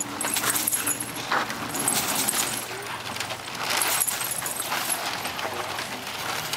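Small objects jingling, shaken in three short bursts a second or two apart.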